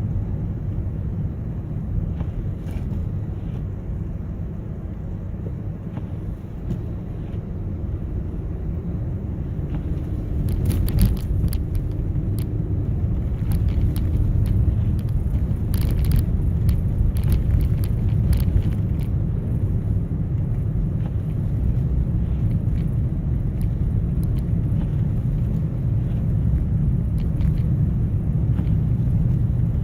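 A car driving, with a steady low road and engine rumble. A run of sharp clicks and ticks comes between about 10 and 19 seconds in.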